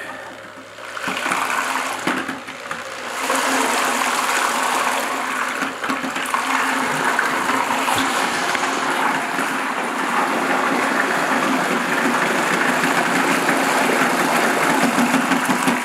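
Corded hammer drill running a mixing paddle through mortar and water in a plastic bucket, a steady churning motor noise. It starts about a second in and grows louder from about three seconds.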